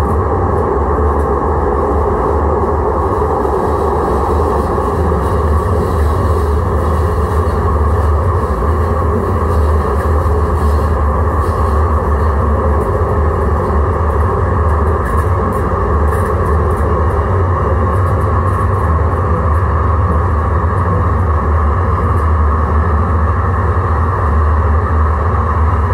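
Stationary 1983 Siemens-Duewag U2 light-rail car giving off a steady, deep hum and drone from its running onboard equipment, with no change in pitch or level.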